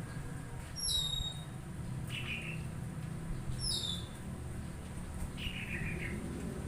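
A bird calling: two sharp, high whistled notes that slide downward, about three seconds apart, with softer, lower chirps between them, over a steady low hum.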